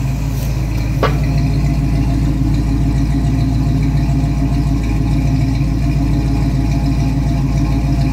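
1965 Ford Mustang's 289 small-block V8 idling steadily, heard at the chrome exhaust tip, with a brief rising chirp about a second in.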